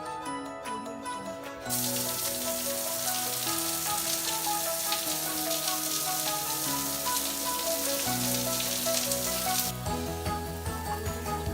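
A shower head spraying water, an even hiss that starts suddenly just under two seconds in and stops suddenly near the end, over background music.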